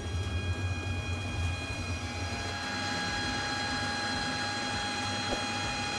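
Steady mechanical drone of a foundry melting furnace's motor-driven air blower: a low rumble with a steady whine and hiss over it. A higher whining tone joins about halfway through.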